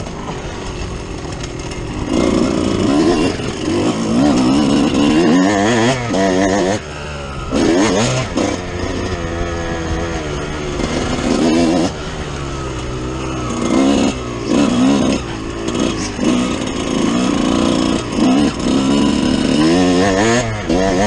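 2005 Kawasaki KX125's single-cylinder two-stroke engine under hard riding, its pitch climbing as it revs out and dropping off sharply again and again as the rider shifts and backs off the throttle.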